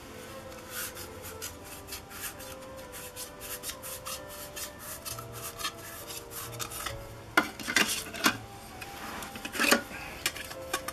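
Black plastic petal lens hoods being handled, rubbed and twisted in the hands: a run of quick scraping clicks of plastic on plastic, with several louder knocks in the second half.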